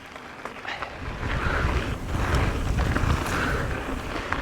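Wind buffeting the microphone of a camera on a moving mountain bike, a deep rumble that builds about a second in, with the noise of tyres rolling over the dirt trail and a few small ticks from stones.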